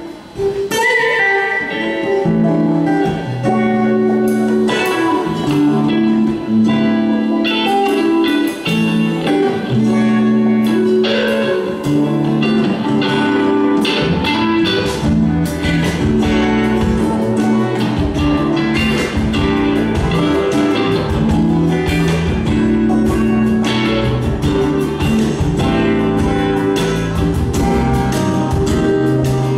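Live band playing a song on electric guitar, bass guitar and acoustic guitar; deep bass notes come in about halfway through.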